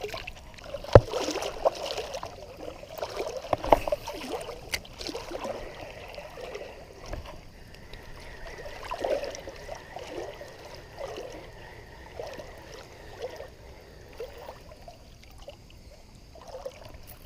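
Water splashing and sloshing as a small hooked bluegill is fought and landed in creek water, with a few sharp clicks in the first few seconds.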